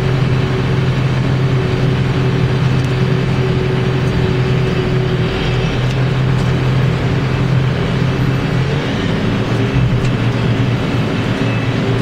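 Tractor engine running steadily while driving, heard from inside the cab. Its low note shifts slightly about nine seconds in.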